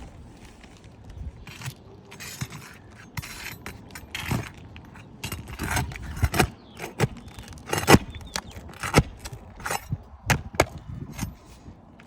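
Roof shingles being pried up and worked loose by hand: irregular scraping and sharp clicks and cracks, the loudest about eight seconds in, as the shingles are lifted and their seal strips break free.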